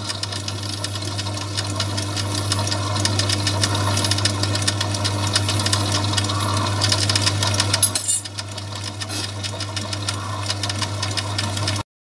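Myford lathe running with a phosphor-bronze piston spinning on a live centre, while a hand file scrapes its edges to take the burrs off the corners. Near the end the sound cuts off suddenly.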